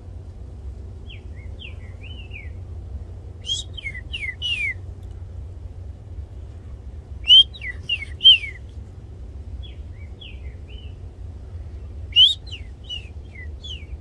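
Green-winged saltators singing, short phrases of quick down-slurred whistled notes. Three louder phrases from a nearer bird alternate with fainter, more distant phrases.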